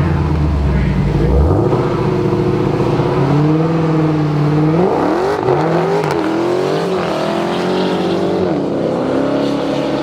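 Drag-racing car engine running hard under acceleration. Its pitch climbs about a second and a half in, dips and climbs again several times around the middle, and then holds fairly steady.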